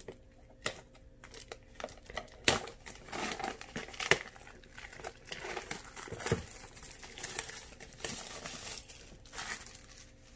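Plastic shrink wrap crinkling and tearing as it is peeled off a cardboard trading card box, in irregular spells with a few sharp taps as the box is handled.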